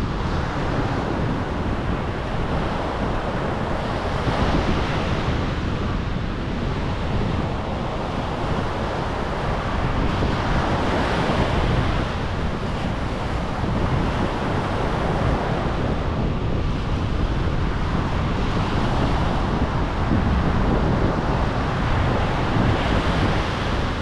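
Atlantic Ocean surf at night: a continuous wash of waves breaking and running up the shore, swelling every several seconds. Wind buffets the microphone in a low rumble underneath.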